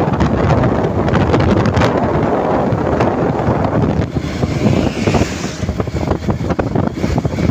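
Wind buffeting the microphone of a moving vehicle, over the rush of road noise. The gusts ease a little about four seconds in.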